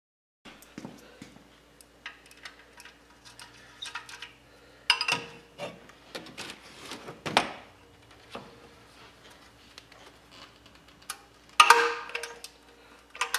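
Ratchet clicking and metal tool clinks as a socket ratchet, levered with a length of pipe, works loose the bolts of the exhaust manifold heat shield, which can be hard to break free. Scattered ticks throughout, with a few louder metallic clanks about five, seven and a half and eleven and a half seconds in.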